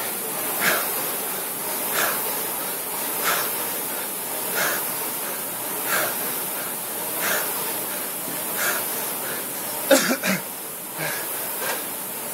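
Concept2 rowing machine worked at full effort: its air-braked flywheel whooshing, with a sharp surge of whoosh and hard breathing in time with each stroke, about one every 1.3 seconds. A louder grunt or voice stands out about ten seconds in.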